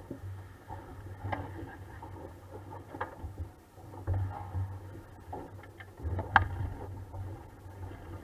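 A 420 sailing dinghy under way: wind rumbling in gusts on the microphone and water noise around the hull, with a few sharp knocks from the boat, the loudest about six seconds in.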